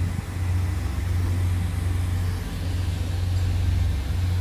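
Steady low drone of a running engine, an even hum with a fast regular pulse and no change in pitch.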